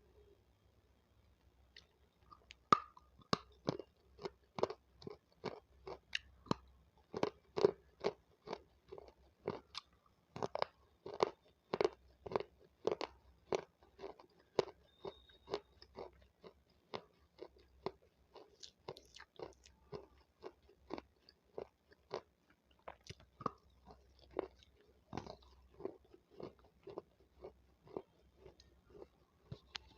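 Crunchy chewing of raw capsicum (bell pepper): a sharp bite a few seconds in, then steady crisp crunches at about two a second.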